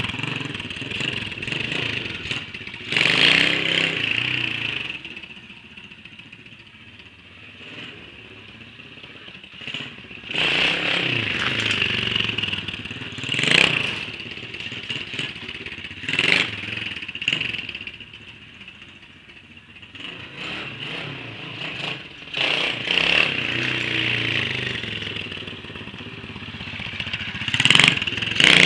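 140cc pit bike's single-cylinder four-stroke engine revving as it is ridden, rising in several sharp bursts of throttle and dropping back between them.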